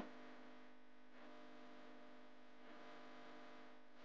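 Faint background music with sustained tones, with a brief click at the very start.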